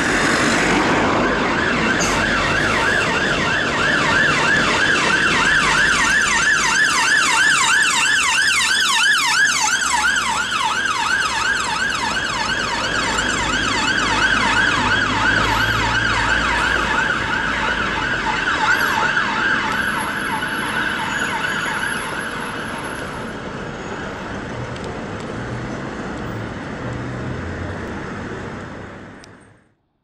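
UK emergency ambulance siren in a fast yelp, its pitch sweeping up and down about three times a second, as the ambulance passes. It gets quieter about three-quarters of the way through and cuts off just before the end, with traffic rumbling underneath.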